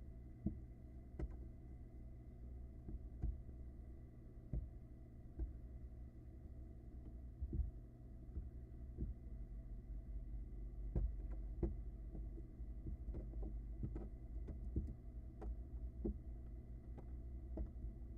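Irregular soft thumps and knocks from barn owl nestlings moving and scrambling about in their nest, over a steady low hum. The knocks come in an uneven scatter and grow more frequent about two-thirds of the way through.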